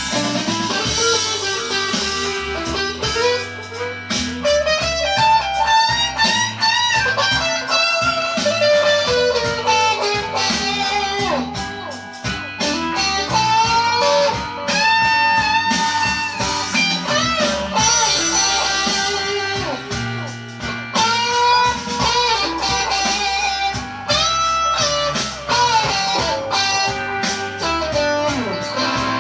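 Stratocaster-style electric guitar improvising a blues-flavoured lead: fast single-note runs mixed with held, bent notes.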